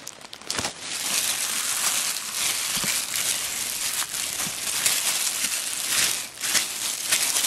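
Disposable plastic gloves crinkling steadily while gloved hands rub flour onto a salmon steak.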